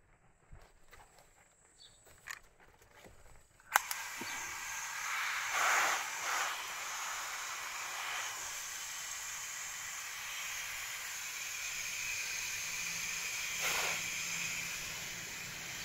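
A few faint clicks, then a sharp click about four seconds in, after which water from a garden hose shower nozzle sprays steadily onto broad plant leaves with a hiss that swells now and then.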